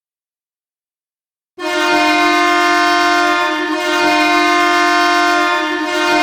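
Custom hockey goal horn blasting: it cuts in abruptly about a second and a half in and holds a loud, steady, chord-like blare.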